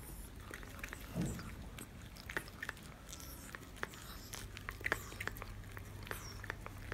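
Pomeranian mother dog licking and biting at the amniotic sac of her newborn puppy: a string of faint, irregular wet clicks and smacks as she tears the sac open and cleans the pup.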